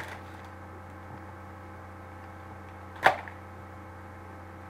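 Steady electrical mains hum, with one sharp click about three seconds in.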